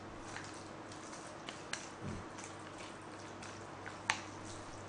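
Jajangmyeon noodles being chewed close to the microphone: a few short wet clicks and smacks, the loudest about four seconds in, over a steady low hum.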